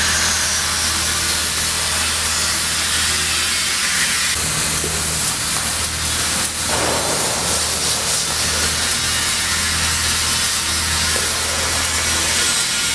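Spray foam gun hissing steadily as it sprays closed-cell polyurethane foam onto a metal wall, with a low steady hum underneath.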